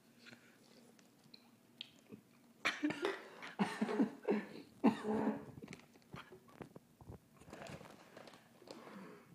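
A young man laughing and coughing in a fit: a run of short, gasping vocal bursts starting about three seconds in, fading into fainter ones near the end.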